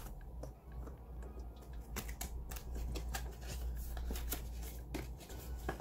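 Australian polymer banknotes and cash envelopes being handled in a ring binder: a string of short, crisp crinkles and flicks as the notes are counted and moved and the envelope pages turned.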